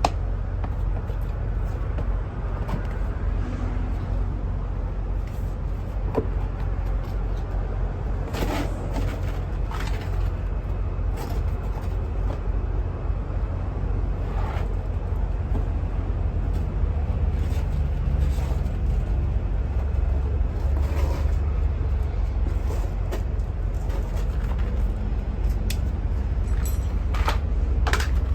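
Heavy truck running with a steady low rumble, with scattered short knocks and rattles.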